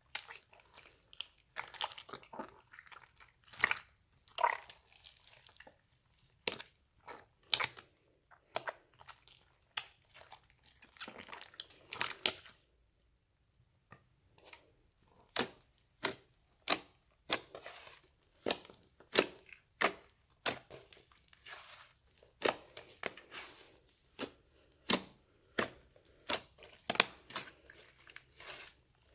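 Slime being kneaded and stretched by hand, giving irregular sticky pops, clicks and crackles, with a short pause about halfway through.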